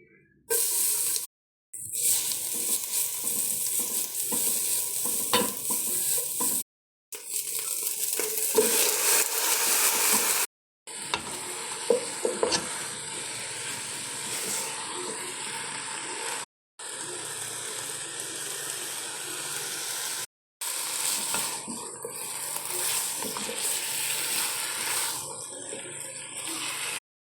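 Food sizzling and frying in a hot pan, with a few sharp clicks of a utensil against the pan. The sizzle cuts off abruptly five times as short clips are joined.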